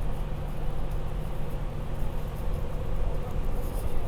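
Inside a moving bus: steady low engine and road rumble throughout.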